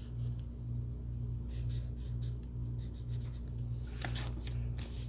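Highlighter tip scratching across planner paper in short strokes, a bunch of strokes near the middle and another near the end, over a steady low hum that pulses about twice a second.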